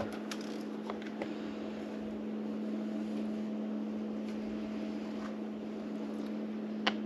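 Coffee machine running with a steady electric hum, with a few faint clicks.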